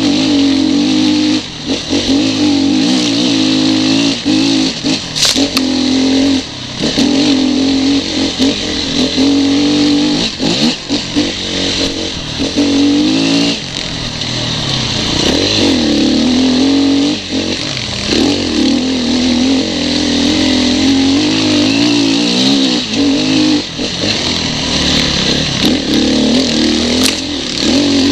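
Off-road dirt bike engine on the rider's own bike, revving up and down over and over with the throttle on a rough trail, with scattered knocks and clatter from the bike over rocks.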